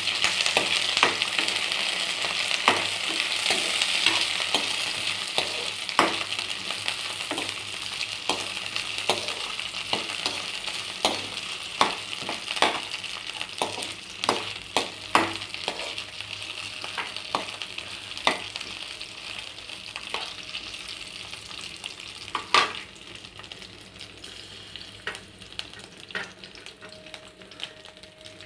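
Green chillies and sliced onions sizzling in hot oil in a kadai while a steel ladle stirs them, with irregular clicks and scrapes of the ladle against the pan. The sizzle is loudest at first and slowly dies down.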